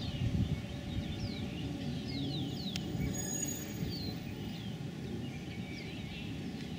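Small birds chirping repeatedly in short falling notes over the steady low rumble of the Portland Traction 4001 electric streetcar rolling along its track in the distance.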